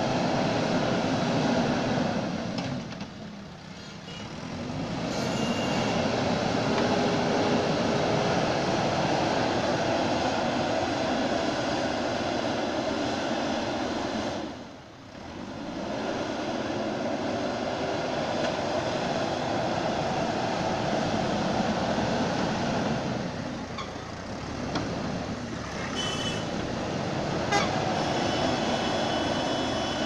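JCB backhoe loader's diesel engine running under load as the machine pushes and levels sand with its front bucket. The noise dips briefly about three seconds in and again about halfway.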